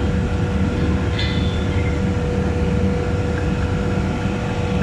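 Rooftop chiller plant running: a steady low machine hum from the compressors and condenser fans, with a constant tone throughout. A brief hiss comes about a second in.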